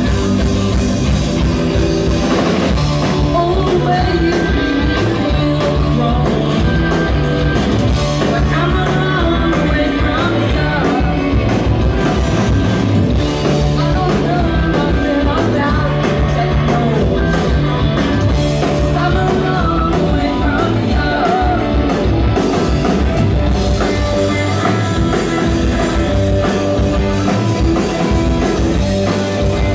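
Live rock band playing, with two electric guitars, bass guitar and drum kit, and a woman singing the lead vocal.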